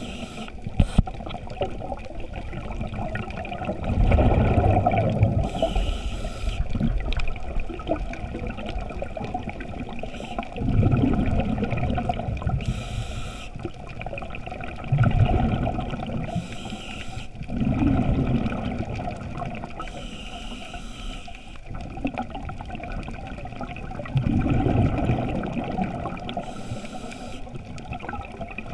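Scuba diver breathing through a regulator, heard through a GoPro's underwater housing: about five rushing, gurgling surges of exhaled bubbles, alternating with short hisses of inhaled air, over a steady underwater wash.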